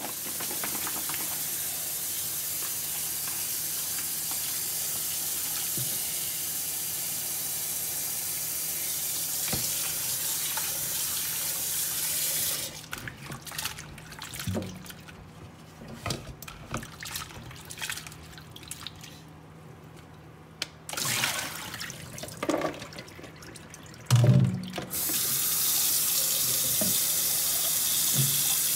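Kitchen tap running into a plastic bowl of cut potato fries in a stainless steel sink. About twelve seconds in, the water stops and hands swish and rub the wet fries, with scattered splashes and a sharp knock, the loudest sound, near the end. The tap then runs again for the last few seconds.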